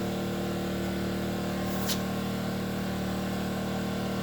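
Enkeeo SC2300i inverter generator's 79cc four-stroke OHV engine running steadily under the load of a 1500-watt space heater on high, with one faint tick about two seconds in.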